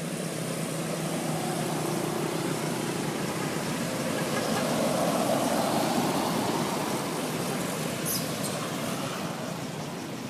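A passing motor vehicle: engine hum and road noise that swell to a peak about halfway through, then fade.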